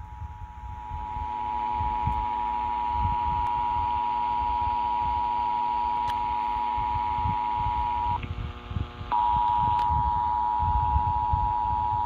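Emergency Alert System attention signal: a steady two-tone alarm, received over radio through a software-defined receiver, marking the start of a Required Monthly Test. The tone drops out about eight seconds in and returns about a second later, over rumbling low static.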